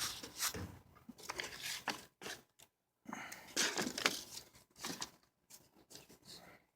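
Irregular rustling, scraping and light clicks of parts and wiring being handled.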